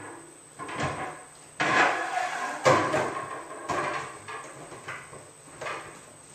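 Hollow white plastic Tower Garden sections knocking and scraping as one is slid down over the centre rods and pushed onto the stack, in a series of sharp knocks and rubs.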